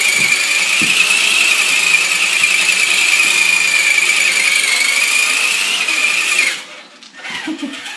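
Electric motor of an RC car whining at high speed, one steady high pitch that sounds like a power sander, cutting off abruptly about six and a half seconds in.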